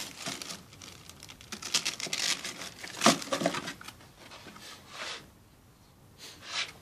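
Cardboard box and plastic wrapping rustling and crinkling in irregular bursts as a hand rummages inside and pulls out a paper sanding disc. Loudest about three seconds in, then a quieter spell before a last rustle near the end.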